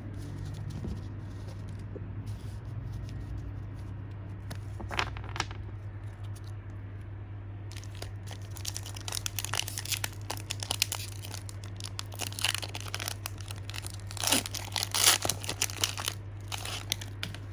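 Foil wrapper of a Pokémon booster pack being torn open and crinkled in the hands, over a steady low hum. A few crinkles come about five seconds in; from about eight seconds it turns into continuous crinkling and tearing, loudest near the end.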